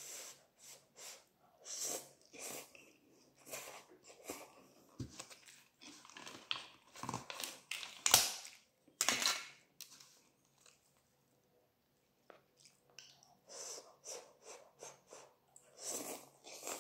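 A person slurping and chewing instant cup noodles: a run of short, irregular wet mouth sounds, loudest around the middle, a pause of a couple of seconds, then more slurping near the end.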